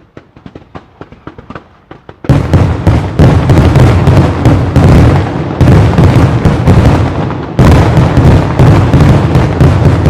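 Fireworks going off: a string of quieter sharp cracks, then about two seconds in a sudden, loud, dense barrage of rapid bangs and crackling that keeps going, easing off briefly twice.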